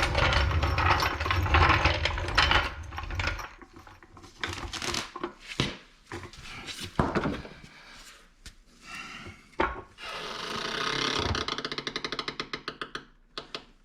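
Hands and tools working on a snowmobile's rear suspension skid frame: a loud rubbing scrape, then scattered knocks and clicks, then a fast run of clicks near the end that fades out.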